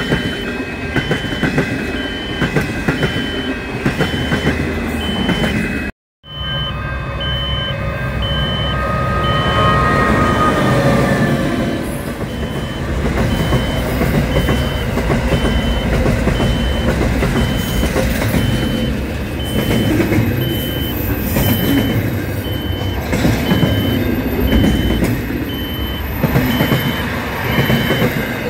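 Trains passing at close range. For the first six seconds it is stainless-steel passenger carriages, then after a brief dropout a long freight train of container wagons, its wheels and wagons rumbling and clattering. A crossing warning alarm beeps steadily throughout.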